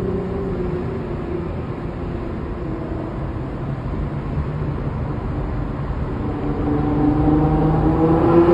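Nissan GT-R's twin-turbo V6 through an Armytrix valvetronic exhaust, heard from inside the cabin while driving. The engine note eases slightly and holds steady, then rises in pitch and loudness as the car accelerates over the last couple of seconds.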